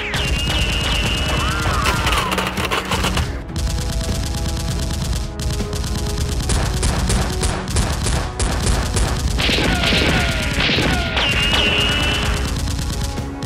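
Rapid, continuous machine-gun-style gunfire sound effects over background music, with gliding whistle-like tones near the start and again about ten seconds in.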